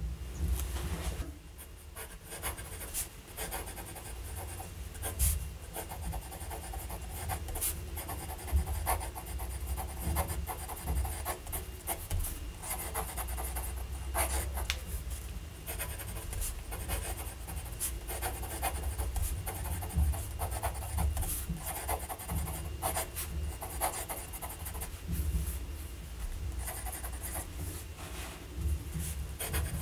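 Fountain pen nib scratching across a Rhodia paper pad in quick, irregular strokes of cursive handwriting, over a low steady hum.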